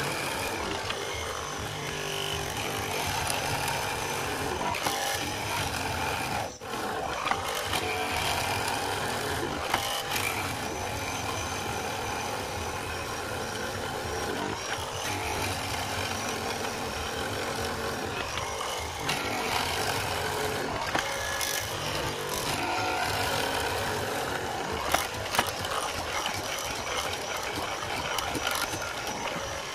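Leopard chain mortising machine running, its cutter chain chewing into a timber beam: a steady motor whine over the rasp of wood being cut, with a brief dip about six and a half seconds in.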